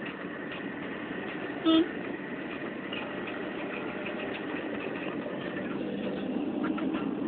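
Road traffic heard from inside a moving vehicle: a steady run of engine and road noise, with one short horn toot about two seconds in.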